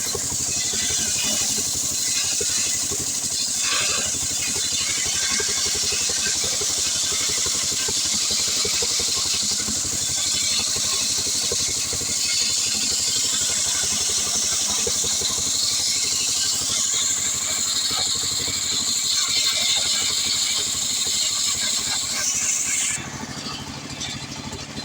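Stihl 070 two-stroke chainsaw running at full throttle, sawing through hard acacia wood. Near the end the engine drops back and the cutting noise stops.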